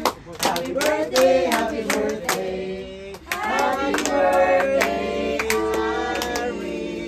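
Music: a sung melody over a sharp, regular rhythmic beat.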